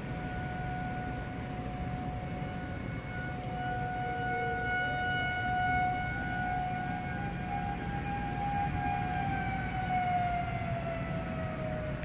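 Outdoor tornado warning sirens sounding a steady wail, more than one siren at different pitches. One tone sweeps up about four seconds in and another slides down in pitch near the end.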